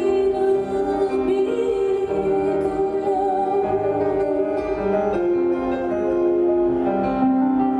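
Live music: a woman singing long held notes over piano.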